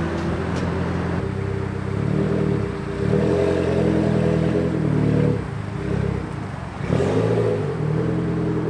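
Car engine revving in repeated sweeps, its pitch climbing and falling several times, with the strongest revs in the middle and near the end.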